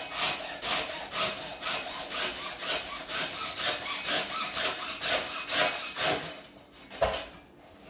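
Hand saw cutting through the strands of a thick three-strand climbing rope in rapid, even back-and-forth strokes that stop about six seconds in.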